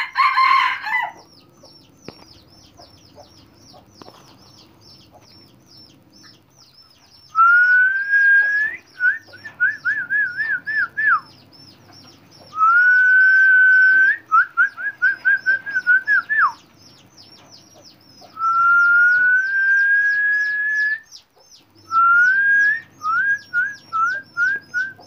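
A loud whistled call repeats four times from about seven seconds in. Each call is one long rising note, mostly followed by a quick run of five to eight short notes. Under it runs a steady, rapid high chirping, about three chirps a second.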